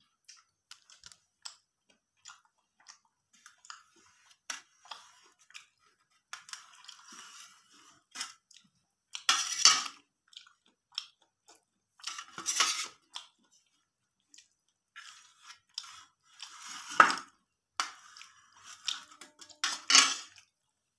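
Eating at a steel plate: chewing, with a knife clicking and scraping against the plate as it cuts through stuffed goat stomach (chusta). There are scattered light clicks and several louder scrapes in the second half.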